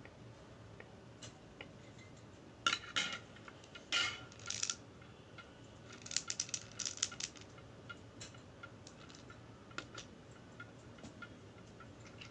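Small hard pieces being handled: two short clatters about 3 and 4 seconds in, a quick run of clicks around 6 to 7 seconds, then scattered ticks.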